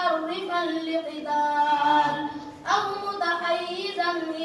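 A boy singing without accompaniment, holding long, slightly wavering notes, with a short break and a new phrase starting just past halfway.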